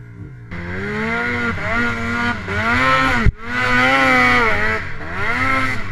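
Snowmobile's two-stroke engine revving hard on a hill climb, its pitch rising and falling again and again as the throttle is worked, with a sudden brief break about three seconds in.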